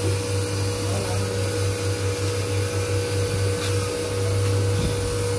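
Steady hum of an electric motor running without a break, a low drone with a constant whine above it.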